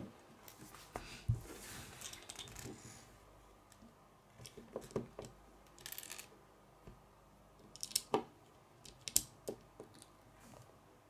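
Small plastic Lego bricks being handled and pressed onto a model: scattered faint clicks and short scrapes of plastic against plastic and a wooden tabletop, with a few sharper clicks near the end.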